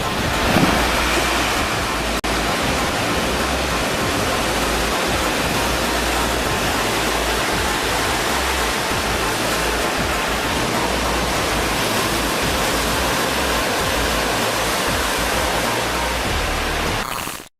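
Steady loud rushing noise, with a brief dropout about two seconds in, cutting off abruptly near the end.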